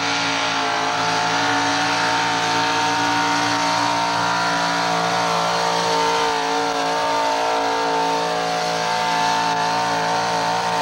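Modified pulling tractor's engine at full throttle, blaring through its open exhaust stacks as it drags the sled, holding a loud, steady pitch.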